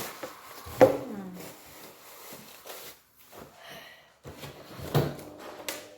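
Handling noises: a sharp knock about a second in with a short falling squeak after it, then rubbing and scraping, and a few more knocks near the end.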